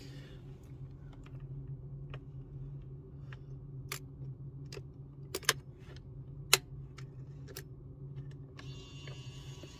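Sharp plastic clicks and snaps from a fibre optic fusion splicer as its fibre clamps and lid are worked by hand, two louder snaps in the middle, over a steady low hum. A short high whir comes in near the end.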